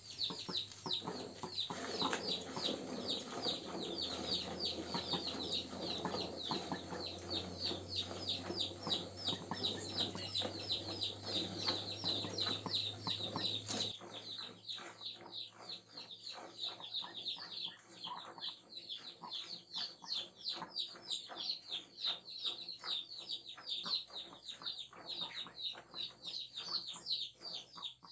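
Hand-milking a cow: milk jets squirting from the teats into a plastic bucket in a quick, even rhythm of several squirts a second.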